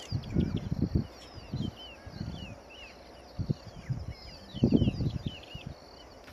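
Lions growling and snarling in several short, low bouts as a lioness and a male tussle, the loudest bout near the end. Small birds twitter with quick high chirps throughout.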